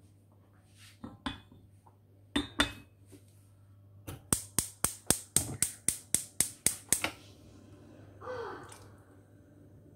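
Wooden spoon knocking against the side of a speckled coated metal pot while stirring soup: a few scattered knocks, then a quick even run of about a dozen, four or five a second, that stops about three seconds later.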